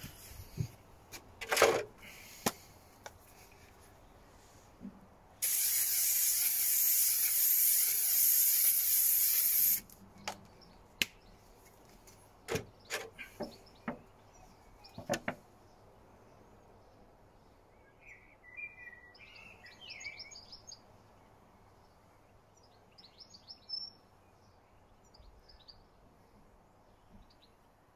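Aerosol can of hydro-dipping activator spraying in one continuous hiss of about four seconds, starting about five seconds in and cutting off sharply. A few sharp clicks and knocks come before and after it.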